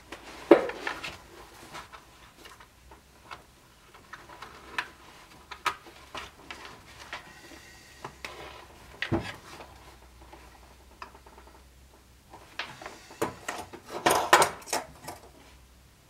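Handling sounds of hand-stitching a leather scabbard: scattered light clicks and knocks from the needles and leather, with the rustle of thread drawn through the seam and leather being moved. A sharper knock comes about half a second in and another about nine seconds in, and a longer spell of rustling comes near the end.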